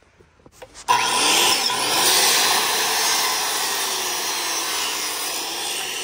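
Corded circular saw started about a second in and cutting through a rough-cut lumber board, running steadily and loud, then beginning to fade at the very end.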